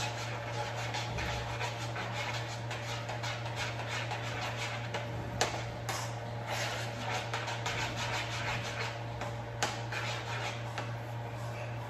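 A spoon stirring mashed potatoes in a pot, a run of soft scraping ticks with a few sharper clicks of the spoon against the pot, over a steady low hum.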